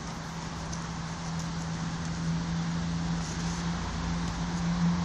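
A steady engine hum that grows a little louder toward the end, over outdoor background noise.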